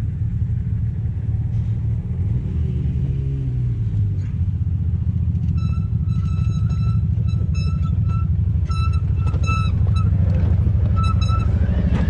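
Side-by-side UTV engines running with a steady low rumble while a side-by-side climbs a steep dirt hill, revving up near the end as it reaches the top. From about halfway, a high tone sounds on and off in short beeps.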